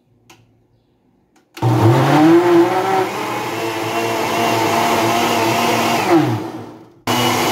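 Oster countertop blender motor starting about a second and a half in and spinning up to speed, then running steadily as it purées tomatoes, chiles and onion into salsa. Near the end it winds down, falling in pitch, cuts out, and comes back running again.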